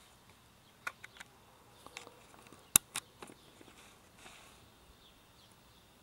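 Quiet outdoor background with a scattering of short sharp clicks and taps. The loudest comes a little under three seconds in, with another just after it, over a faint steady high hiss.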